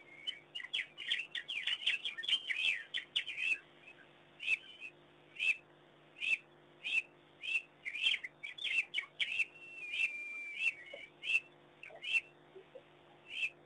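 African wild dogs twittering: a quick flurry of high chirping calls, then single chirps spaced under a second apart, with one held whistle-like note about ten seconds in. This bird-like twittering is the pack's social call during play.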